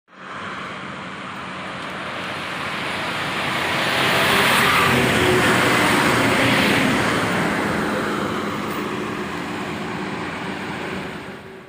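Road vehicle noise that swells to a peak about halfway through and then slowly fades, like a vehicle going past, starting and stopping abruptly.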